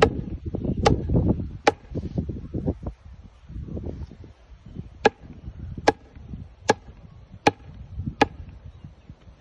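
Sledgehammer blows on the top of a steel-reinforced recycled-plastic fence post, driving it into an augered hole. Three sharp knocks about a second apart, a pause of about three seconds, then five more at the same pace, each with a short ring.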